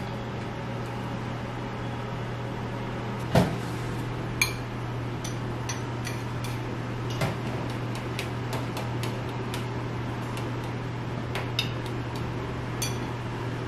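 Sharp clinks and taps of metal utensils against stainless steel bowls and plates, some ringing briefly, over a steady low hum. The loudest knock comes about three seconds in, with lighter clicks scattered through the rest.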